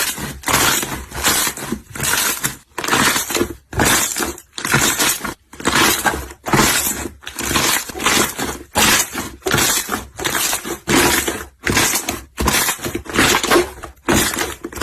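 Slime being squeezed and pressed by hand, a crackly noise in short regular bursts of about two a second.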